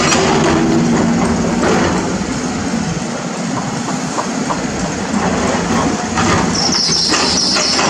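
CAT 320D hydraulic excavator's diesel engine running under load as the bucket scoops and lifts soil and broken concrete, with scraping and clattering of debris. A high squeal comes in near the end.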